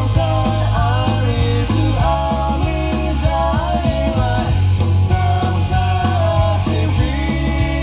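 Melodic punk rock song playing from a vinyl record: a sung melody over a rock band, with steady bass and regular drum hits.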